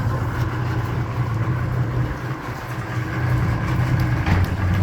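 Yamaha 250 hp VMAX fuel-injected, oil-injected V6 two-stroke outboard idling steadily, with a short click about four seconds in.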